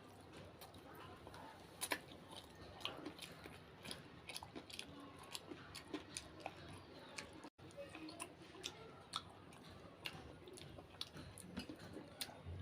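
A person chewing samosa close to the microphone: soft, irregular wet mouth clicks and small crunches.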